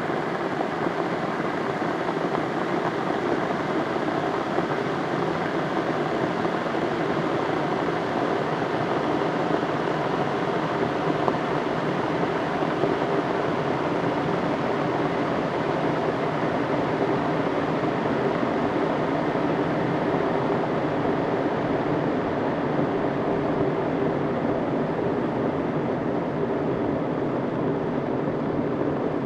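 Kettle boiling water, a steady, unbroken rumble of water at the boil.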